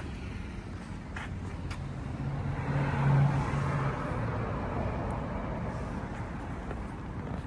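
Engine of a Canycom BFP307 crawler carrier running steadily. It gets louder for a couple of seconds near the middle. There are two light clicks a little after a second in.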